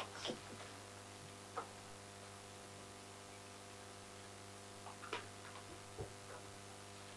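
Faint steady electrical mains hum, with a few soft scattered ticks and knocks.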